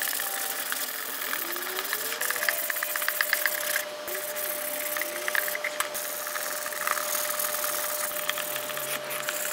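120-grit sandpaper on a sanding block scraping in quick back-and-forth strokes over a plastic taillight lens, dry sanding off the old clear coat. A steady hum runs underneath from about two and a half seconds in.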